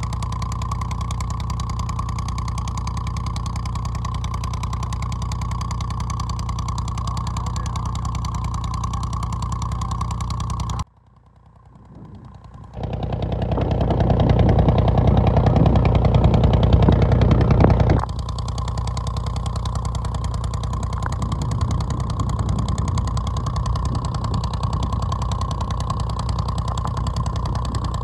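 Boat engine running steadily. About eleven seconds in the sound cuts out almost completely, then returns louder for about five seconds before settling back to the same steady running.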